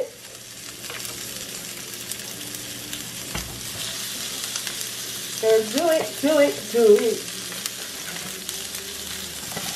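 Sliced onion rings sizzling in a little leftover fish-frying oil in a nonstick pan, a steady hiss as the sauté begins. A voice is heard briefly about halfway through.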